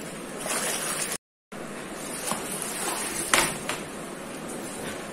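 Whey sloshing and splashing in a large steel pot as it is ladled out through a plastic basket strainer pressed into the paneer curds, with one louder splash past the middle. The sound cuts out for a moment about a second in.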